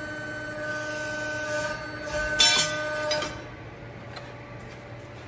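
Bend/Force 8 ft 145-ton CNC press brake making a bend in thin sheet metal: its drive gives a steady whine, a sharp clack comes about two and a half seconds in, and the whine stops a little after three seconds.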